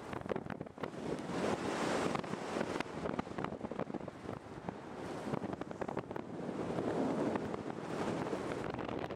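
Wind noise from air rushing over the microphone of a camera carried in soaring flight: a rough rush with frequent crackling buffets and no engine, swelling about two seconds in and again around seven seconds.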